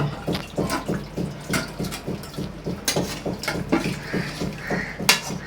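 A metal spoon scraping and clinking against a kadai in quick, uneven strokes as curry is scooped out into a bowl, over a steady low hum.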